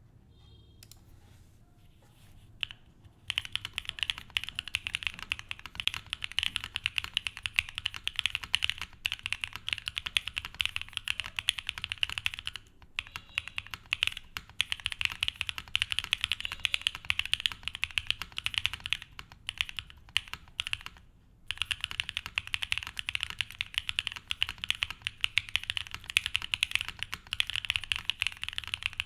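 Fast, steady typing on a custom 60% mechanical keyboard with lubed and filmed Gateron Cream Soda linear switches in an aluminium plate, under cherry-profile keycaps. The typing starts about three seconds in and breaks off briefly twice.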